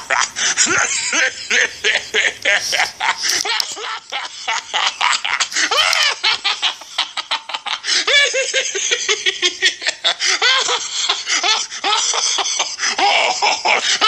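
A child laughing hard without a break, in quick repeated high-pitched bursts of laughter.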